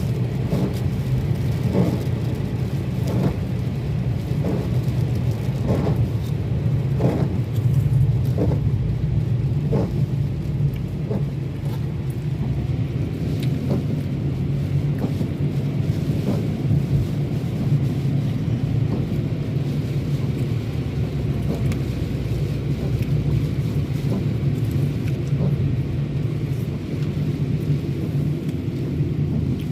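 Steady road and engine rumble inside a moving car, with scattered brief knocks during the first ten seconds or so.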